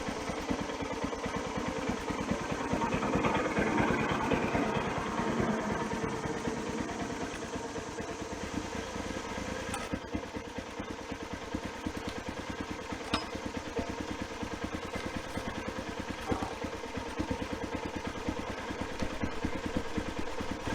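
Portable bandsaw sawmill running steadily, its engine pulsing evenly while the band blade cuts through a hard oak log. The sound swells a little between about two and six seconds in.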